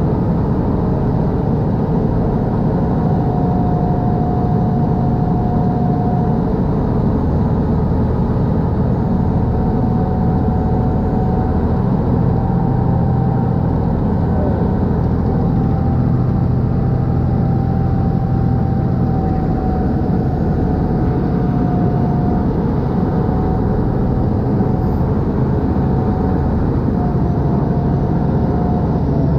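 Khlong Saen Saep express boat's diesel engine running steadily at cruising speed, mixed with the rush of its wake along the hull. A faint wavering tone rides above the engine.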